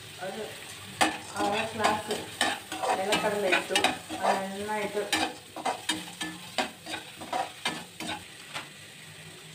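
Metal slotted spoon knocking and scraping around a metal kadai, stirring peanuts into frying tomatoes, green chillies and onion, with the pan ringing briefly after the strikes and a light sizzle of the oil. The stirring starts about a second in and stops about a second before the end.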